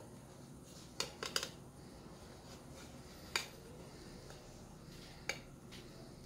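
Metal cake server clicking and tapping against a plate as a slice of frozen biscuit-and-cream pie is cut and lifted out: a quick cluster of three faint clicks about a second in, another in the middle and one near the end.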